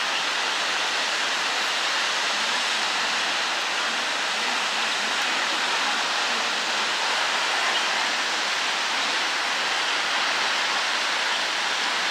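Waterfall plunging into a rock pool: a steady, even rush of falling water that does not change.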